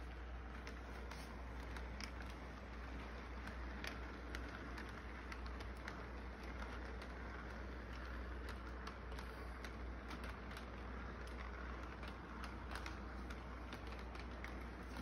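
Model electric train rolling along its track: a steady running noise with frequent light, irregular clicks from the cars' wheels on the rails.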